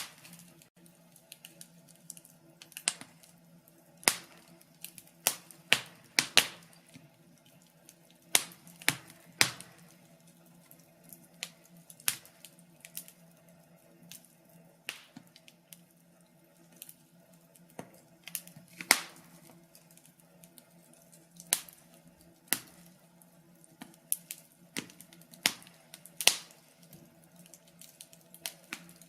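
Wood fire crackling in a fireplace: sharp, irregular pops and snaps, sometimes in quick clusters, over a faint steady low hum.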